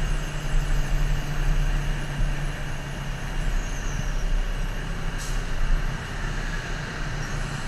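Motorcycle engine running at a steady cruise under constant wind rush and road noise, picked up by a GoPro Hero 3+'s internal microphone. A brief high tick about five seconds in.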